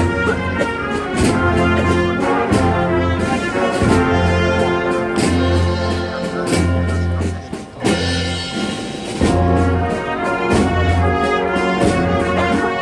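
Brass band playing a Holy Week processional march: sustained trumpet and trombone chords over low bass notes, with regular drum strikes.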